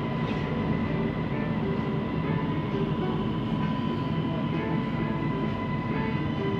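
Siemens Inspiro metro train running, heard from inside the carriage: a steady rumble of wheels on rail with a thin, steady high whine. The uploader calls this rolling noise weird.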